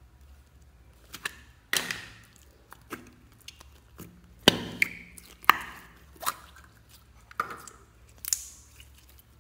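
Green slime being squeezed and pulled apart by hand, giving a string of sharp pops and wet squelches about once a second.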